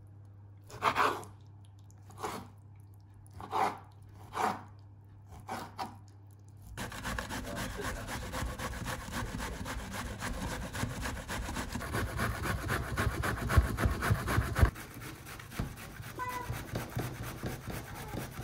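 Knife slicing raw chicken breast against a wooden cutting board: about five separate strokes. Then, about seven seconds in, a zucchini is rubbed fast over a metal box grater, a rapid rasping that turns quieter for the last few seconds.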